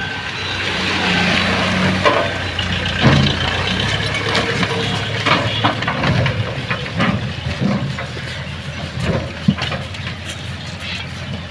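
Tractor engine running steadily, with scattered knocks and rustles over it.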